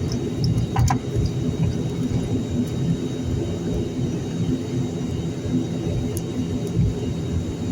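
Steady low rumble of an airliner heard from inside the passenger cabin, with a couple of faint clicks about a second in.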